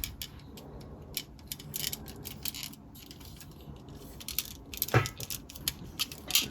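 Small plastic LEGO parts clicking and rattling as the AT-RT walker's legs and joints are moved by hand: an irregular string of light clicks.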